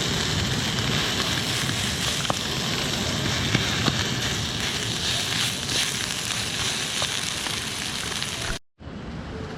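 Food sizzling in a hot pan: a steady hiss with scattered small pops and crackles. It cuts off suddenly near the end, and a quieter hiss follows.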